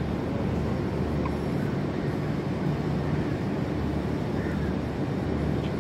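Cargo ship's engine and machinery running with a steady low rumble and hum.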